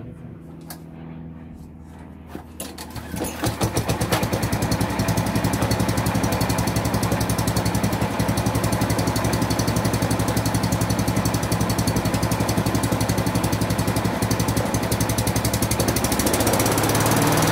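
Single-cylinder petrol lawnmower engine running, first at a low idle, then speeding up sharply about three seconds in and running fast and steady with a rapid even firing beat. It grows a little louder near the end.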